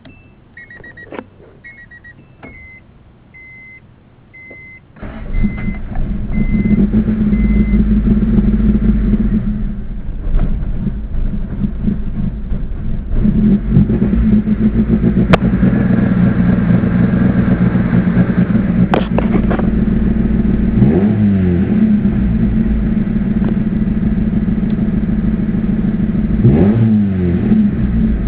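A repeating electronic warning chime beeps, then about five seconds in an Acura Integra's B18 four-cylinder engine starts and settles into a rough, lumpy idle that sounds cammed, the sign of an idle fault. It is revved briefly twice near the end.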